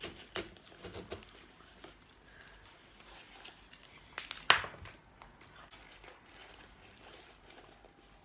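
Quiet eating sounds at a table: small clicks and rustles from handling paper fast-food packaging and a cardboard fries carton, with one louder sharp crinkle about four and a half seconds in.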